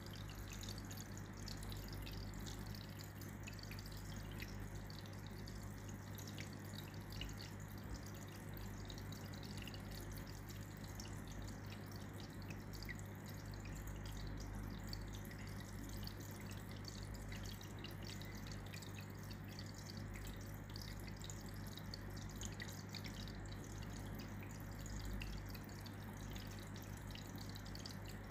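Faint water dripping, many small irregular drips over a steady low hum.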